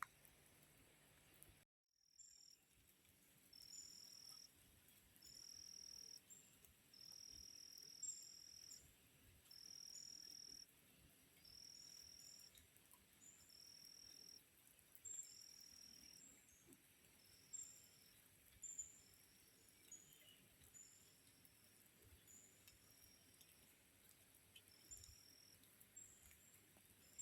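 Faint insect calling in the forest: high buzzy trills repeating about once a second, with short high chirps between them, fading slightly later on.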